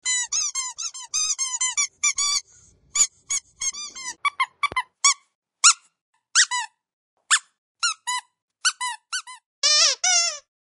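Rubber squeaky dog toy squeezed over and over: a fast run of short squeaks at first, then single squeaks spaced apart, and two lower, longer squeaks near the end.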